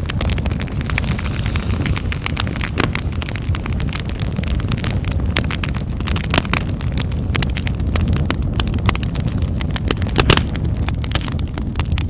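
Wood fire burning in a fireplace: a steady low rumble of flames with dense crackling and sharp pops of burning wood, a few louder pops about halfway and near the end.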